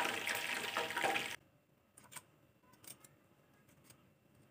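Hot oil sizzling around fried chicken drumsticks as they are lifted out of the pan in a wire spider strainer. The sizzle cuts off abruptly about a second and a half in, leaving near silence with a couple of faint clicks.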